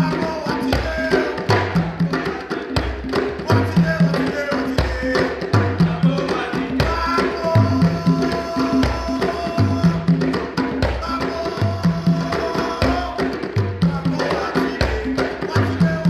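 Two djembes played by hand in an interlocking rhythm: fast slaps and tones over a deep bass stroke about once a second.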